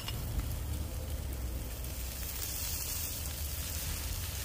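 Sauce-basted ribs sizzling on a grill over hot coals, a steady crackling hiss as the basting sauce hits the heat, with a steady low rumble underneath.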